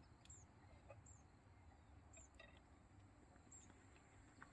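Near silence: faint open-air ambience with a few faint, short high chirps about once a second over a steady faint high tone.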